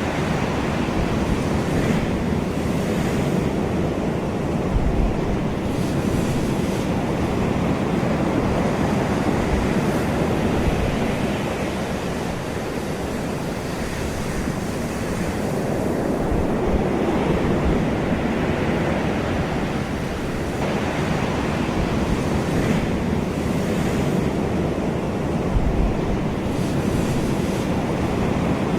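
Ocean waves breaking and washing on the shore: a continuous rush of surf that slowly swells and eases, with a few brief low rumbles of wind on the microphone.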